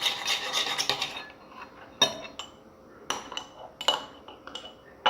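Spoon stirring and scraping inside a bowl of soapy mixture for about a second, then a handful of separate clinks and taps as the spoon knocks against the container.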